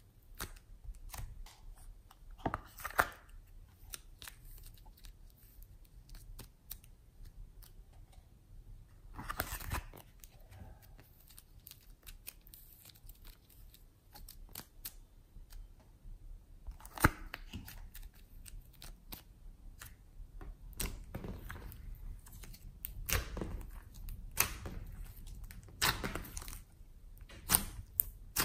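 Soft air-dry clay being squeezed and pulled apart by hand, with irregular small crackles and tearing sounds. In the last few seconds louder, busier sticky clicks come as the clay is pressed into glossy slime.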